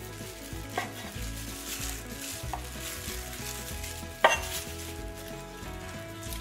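Meat cleaver chopping boiled pork belly on a wooden cutting board: a few sharp chops, the loudest about four seconds in, over a steady hiss.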